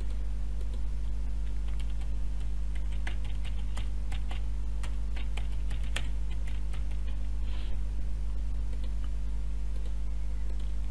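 Typing on a computer keyboard: irregular quick key clicks, over a steady low electrical hum.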